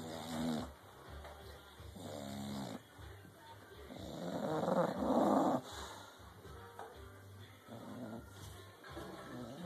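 English bulldog snoring in its sleep: a series of pitched, buzzy snoring breaths, the loudest and noisiest lasting from about four to five and a half seconds in.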